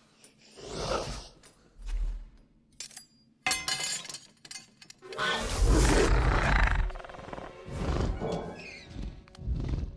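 A metal ladle drops and clangs on a tiled floor about three and a half seconds in, ringing briefly. Around it are animal snorts and roars and tense orchestral music, with the loudest stretch a little after the clang.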